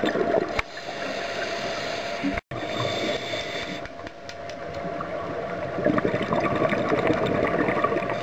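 Underwater sound through a camera housing: the rushing and bubbling of a scuba diver's exhaled air over a faint steady hum. The sound cuts out for a moment about two and a half seconds in.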